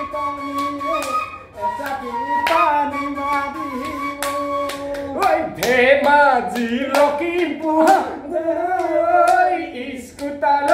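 Bihu song music: a sung melody with a flute-like line, gliding and bending in pitch, over sharp percussive strikes that come again and again.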